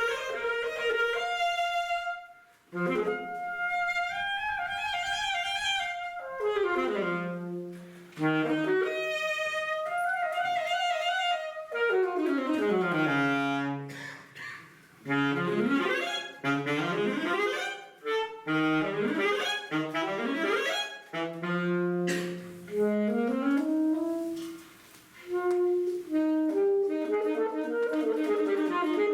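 Saxophone playing a fast czarda melody as a single line, with quick runs that sweep down and back up and a few short breaks between phrases.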